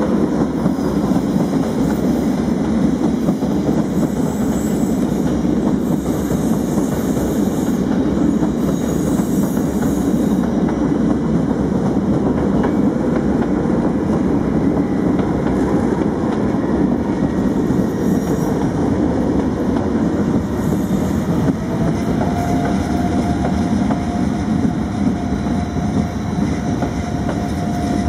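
NS ICM intercity electric multiple unit rolling through the station at speed, with a steady heavy wheel rumble and clatter over the rails. About three quarters of the way through, a thin steady squeal joins in.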